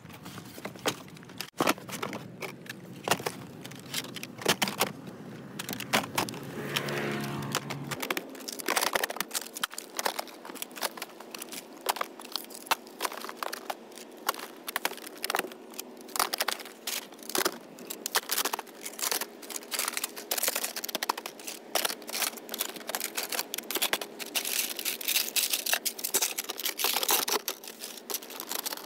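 Phones and phone parts clicking, tapping and clattering as they are handled, in many quick, irregular strikes with some crackling.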